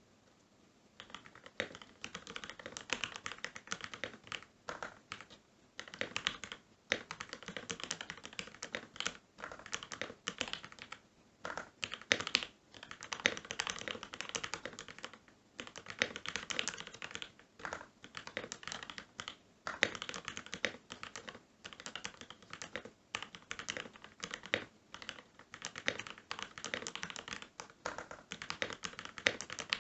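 Typing on a custom 60% mechanical keyboard with lubed Gateron Black Ink v2 linear switches, an FR4 plate and PBT keycaps in a stacked acrylic case. It comes in dense runs of keystrokes broken by short pauses, starting about a second in.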